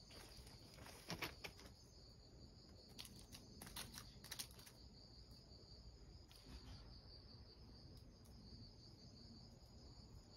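Faint, steady high-pitched insect trill in the background. Over it, a few light clicks and crunches of gravel in the first half, from a cat's paws stepping over loose stones before it settles.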